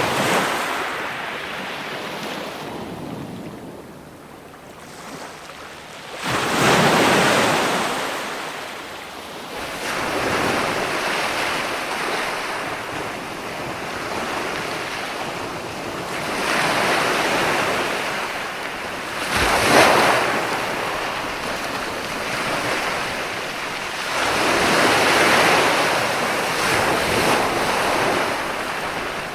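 Ocean waves breaking and washing in, one swell of surf every few seconds, with a sharper crash about twenty seconds in.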